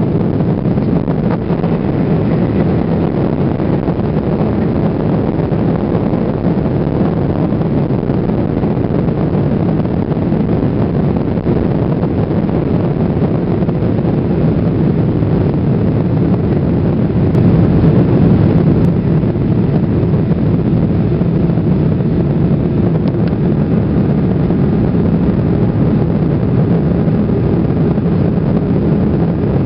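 Steady cabin noise inside a Boeing 777-300ER on approach, a low rumble of its GE90 engines and the airflow past the fuselage, heard from a window seat over the wing. The noise swells briefly a little past halfway through.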